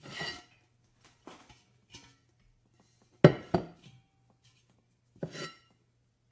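A run of short household knocks and clatters, like kitchenware being handled: a clatter at the start, a few light clicks, then two sharp knocks about three seconds in, the loudest, and another knock near the end, over a faint low hum.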